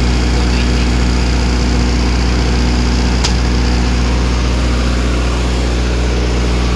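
50 kVA Motorstar diesel generator set running steadily on a test run, a constant low hum. A single sharp click about three seconds in.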